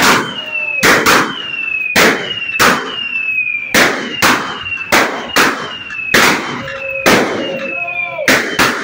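A large Chinese gong struck hard again and again in an uneven rhythm, each strike ringing on with a tone that slides down in pitch.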